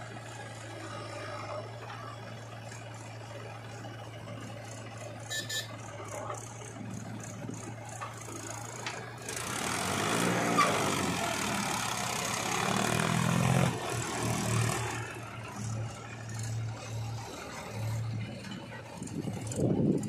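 Diesel engines of a JCB backhoe loader and a farm tractor running steadily. About halfway through, the backhoe's bucket tips a load of mud into the steel trolley with a long rushing, rattling noise lasting several seconds, while an engine pulses under load.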